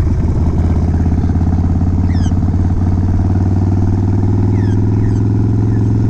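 Harley-Davidson V-twin motorcycle engine running steadily under way, with a fast, even pulsing from the exhaust.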